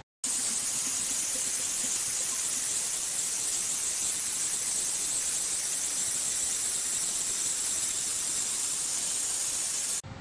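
Flow waterjet cutter's jet hissing steadily as it cuts a section from a metal specimen. It is a loud, high hiss that starts abruptly a moment in and cuts off suddenly near the end.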